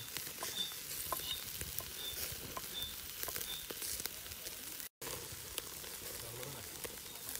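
Duck pieces sizzling on a wire grill over charcoal: a steady hiss dotted with small pops and crackles. The sound drops out for an instant about five seconds in.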